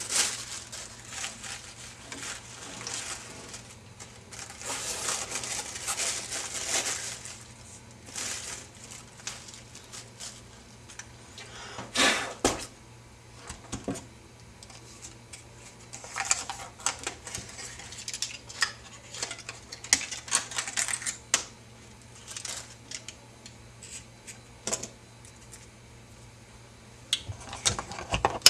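Packaging rustling and die-cast metal scale-model crane parts being handled, with scattered sharp clicks and clacks as the pieces knock together; the loudest clacks come a little under halfway through.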